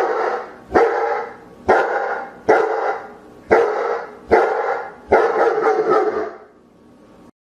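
German Shepherd barking in a steady series of seven deep barks, about one a second, the last one drawn out a little longer.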